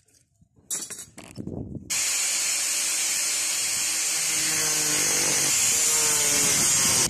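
Makita angle grinder running, its disc held against a tube to cut or grind it. It starts suddenly about two seconds in after a few handling clicks, then runs as a steady loud hiss, with lower humming tones joining about halfway through.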